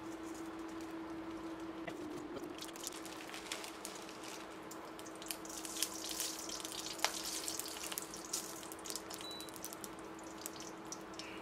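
Dried red chillies and fenugreek and cumin seeds crackling and popping in hot oil in a stainless steel pot, the crackle thickest in the middle, over a steady low hum.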